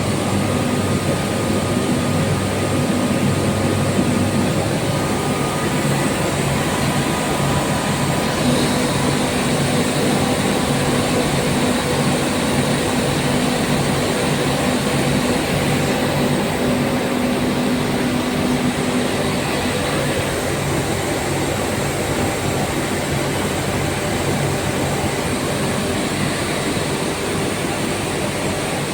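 A 22 kW (30 HP) fixed-speed screw air compressor running steadily: a loud, even machine rush with a low hum, some of its faint tones coming and going.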